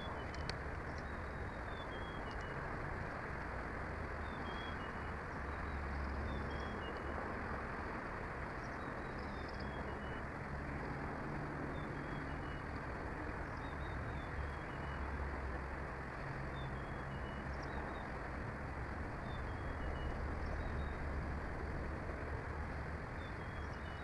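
A small songbird singing a short phrase of two or three high notes falling in pitch, repeated every two to three seconds, over a steady rushing background noise.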